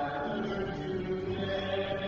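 Church music during Mass: long held notes that change slowly, one chord to the next.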